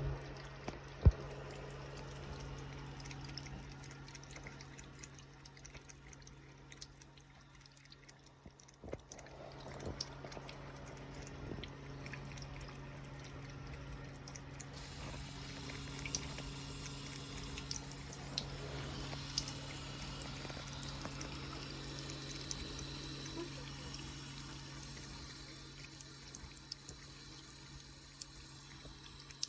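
A cat drinking running water, lapping with small wet ticks over the trickle, with a steady low hum underneath. A sharp click sounds about a second in.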